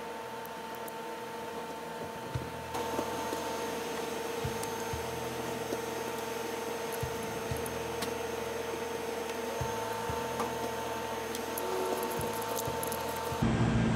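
A small electric blower motor running steadily, a constant whine over a hiss of moving air, with a few light handling knocks; it cuts off near the end.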